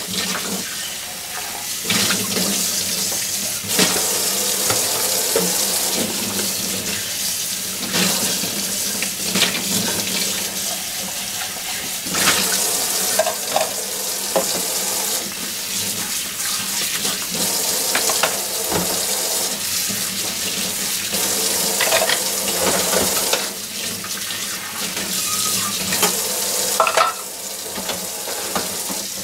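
Kitchen tap running steadily into a stainless-steel sink while dishes are washed by hand, with several clinks and knocks of glasses and dishware.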